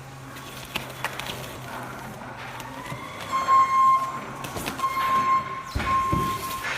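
A repeating electronic beep, one steady tone sounding about once a second, begins a few seconds in over machine and background noise. A low rumble comes near the end.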